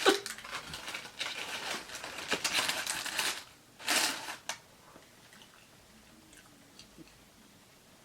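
Close-miked chewing and crunching of a crispy fried chicken wing, with dense crackly bites for about three seconds, a short breathy burst around four seconds in, then only faint mouth sounds.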